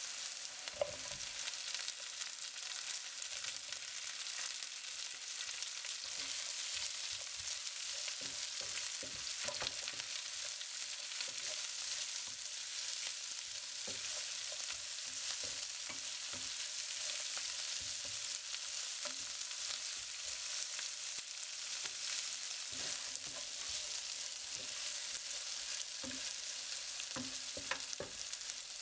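Oil sizzling steadily in a non-stick pan as sliced vegetables are stir-fried, with a spatula scraping and knocking against the pan now and then.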